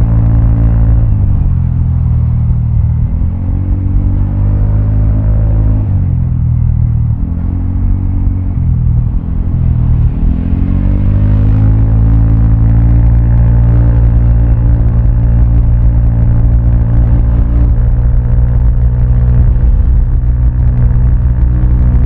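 Vespa scooter's single-cylinder engine running through an aftermarket Prospeed exhaust while riding. Its pitch falls and rises several times in the first ten seconds as the throttle is eased and opened, then it holds a steady drone at cruising speed.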